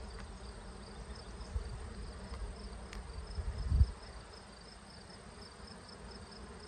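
Honeybees buzzing steadily over an open hive, with a few low bumps from handling partway through, the loudest just before four seconds in, as a wire-mesh push-in queen cage is pressed onto the comb.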